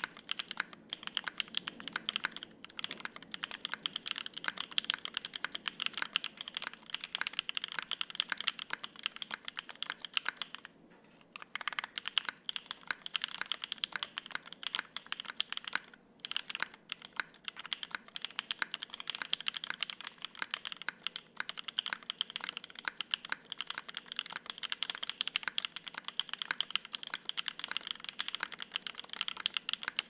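Steady, fast typing on a gasket-mount 60% custom mechanical keyboard with lubed, filmed Konpeitou switches on a leaf-spring polycarbonate plate and double-shot ABS keycaps: a dense run of keystrokes, with a brief pause about eleven seconds in and another shorter one around sixteen seconds.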